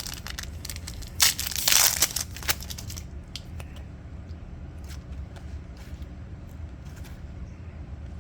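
A trading-card pack's wrapper being torn open, with a loud crinkling rip about a second in, followed by faint ticks of cards being handled.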